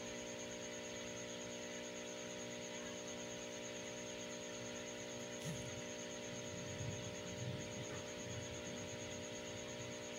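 Steady electrical hum of aquarium equipment, with a thin high whine over it. There is a short click about halfway through and a few soft low bumps a little later.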